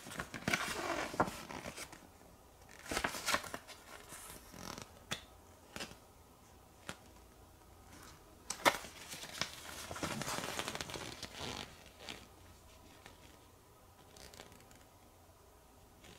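Pages of a small paper booklet being turned and handled, rustling in several bursts with quieter gaps, and one sharp crisp crackle of paper about nine seconds in.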